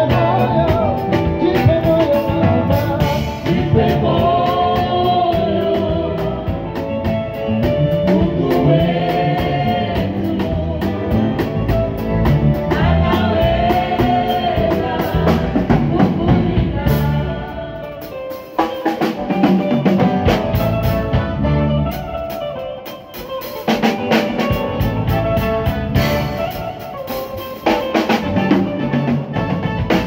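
A small live praise band playing: singing over acoustic and electric guitar, bass guitar and a drum kit. The low end briefly drops out twice in the second half, then the full band comes back in.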